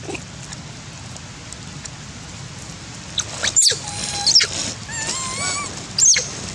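Baby long-tailed macaques crying: sharp, shrill squeaks begin about three seconds in, with a wavering, whining cry among them.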